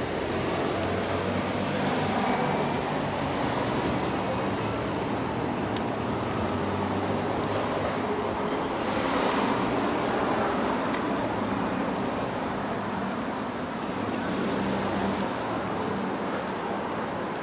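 Street traffic: cars running on the road with a low engine hum, one vehicle passing louder about nine seconds in.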